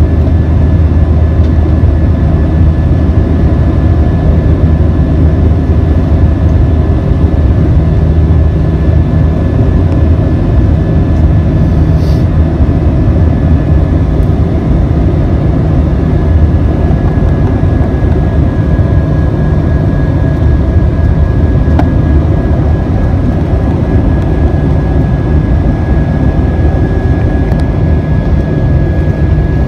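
Cabin noise of an Airbus A320-232 climbing after takeoff, heard from a window seat beside the wing: its IAE V2500 turbofans and the airflow make a loud, steady rumble with a thin, steady whine on top.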